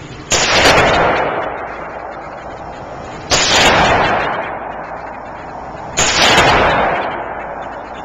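Three semi-automatic pistol shots, spaced about three seconds apart. Each shot is a sharp crack followed by a long echo that dies away in the enclosed concrete range.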